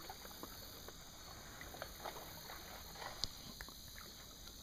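Faint scattered ticks and small knocks of a kayak drifting on the water, with no steady sound.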